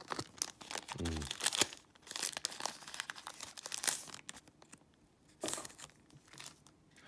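Foil Yu-Gi-Oh! Magic Ruler booster pack wrapper crinkling and rustling in the hands as it is opened, with a short noisy burst about five and a half seconds in.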